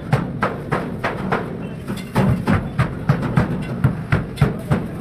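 A rapid, even run of sharp knocks, about three or four a second.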